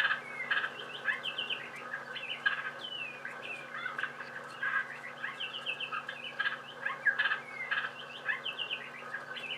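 Songbirds singing: a dense chorus of quick chirps and short falling whistles, many birds overlapping, over a faint steady low hum.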